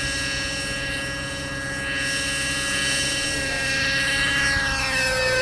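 Radio-controlled model helicopter flying low: a steady whine from its motor and rotor, with many pitched lines, falling in pitch near the end.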